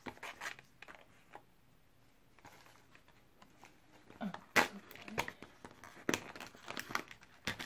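Crinkling and crackling as a cardboard advent-calendar window is pried open and a small foil treat packet is handled, in scattered sharp crackles that grow busier and louder in the second half.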